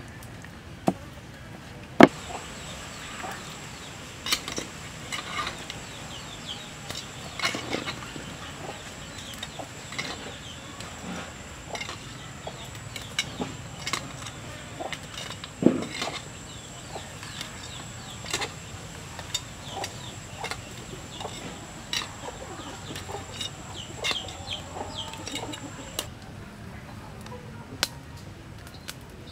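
Chickens clucking, with scattered sharp clicks and knocks from metal tongs on a wok and the eggs in it. A thin steady high tone sounds through most of it and stops near the end.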